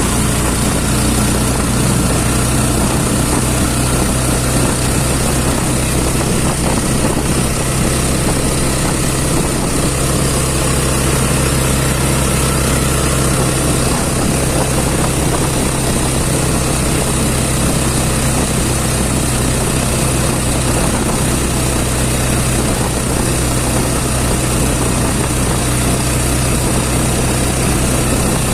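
A vehicle's engine running at a steady pace with road and wind noise, heard from on board while driving. The drone holds even, with no change in speed.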